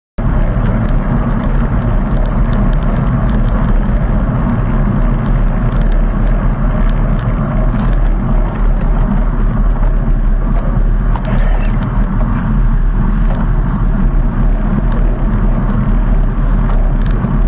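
Loud, steady rumble of wind and road noise picked up by a camera on a road bicycle riding through a road tunnel, with traffic noise echoing in the tunnel.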